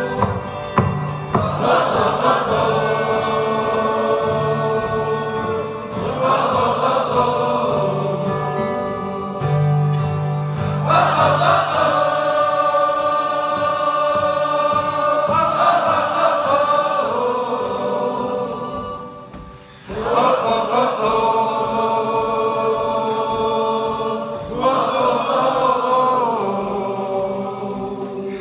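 Several voices singing a wordless refrain together in long phrases of a few seconds each, over acoustic guitars, in a live acoustic band performance. The music dips briefly about two-thirds of the way through, then resumes.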